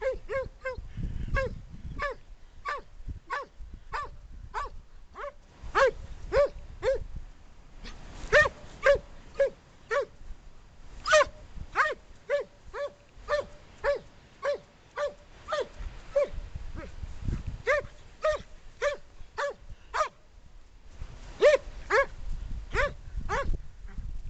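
German Pointer dog making short, repeated vocal calls, about two a second, as if talking. There is a brief pause near the end, then a few louder calls.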